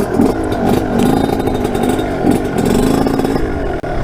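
TM 125 SMR two-stroke supermoto engine running and revving, its pitch rising and falling with the throttle.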